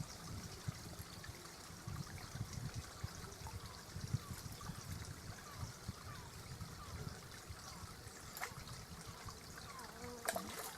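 Running water trickling steadily, with a couple of sharp clicks near the end.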